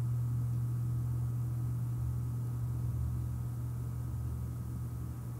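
A steady low hum, with faint high steady tones above it and no distinct tool clicks or knocks.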